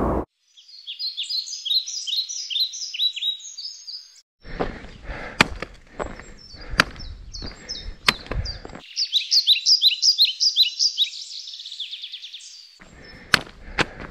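A songbird sings fast series of repeated descending notes, in two stretches. Between and after them come footsteps with the sharp clicks of trekking-pole tips striking an asphalt road.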